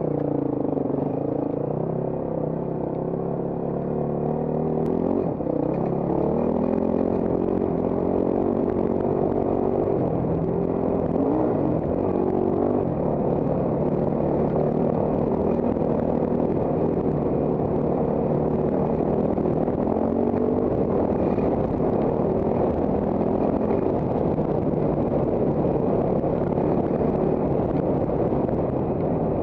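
Trail motorcycle engine running as the bike rides along, its pitch rising and falling with throttle and gear changes, climbing twice in the first half.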